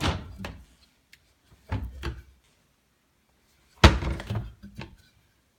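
Kitchen cabinetry being shut: a soft knock about two seconds in, then a sharp thunk about four seconds in with a short rattle after it.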